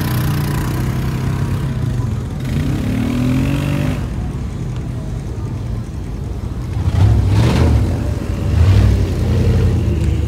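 Off-road side-by-side engine running, its pitch rising as it revs about two and a half seconds in. From about seven seconds in the engine grows louder and rougher, in surges.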